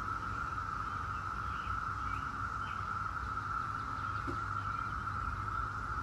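Chorus of Brood X periodical cicadas: a continuous, steady drone held at one pitch.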